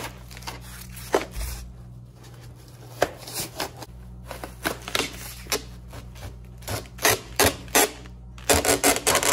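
An old water line being dragged out through cured spray-foam insulation inside a wall cavity: irregular crunching, scraping and snapping as the foam breaks away from the pipe, busiest near the end.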